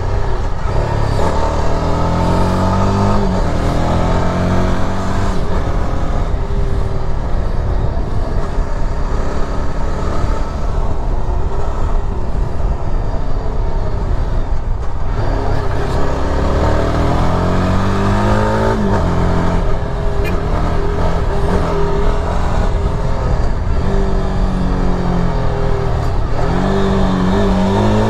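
Yezdi Adventure's single-cylinder motorcycle engine running under way, its pitch climbing as it revs up and then dropping back several times: about a second in, midway, and near the end.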